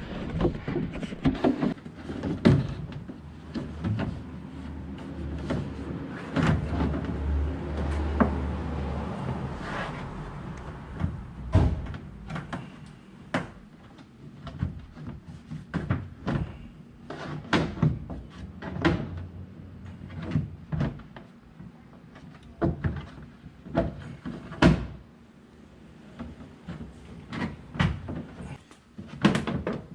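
Husky Liners plastic wheel well guard being worked into place against the truck's wheel well, giving a string of irregular knocks, clunks and clicks as it is pushed and positioned for its screws. A low steady hum runs briefly about six seconds in.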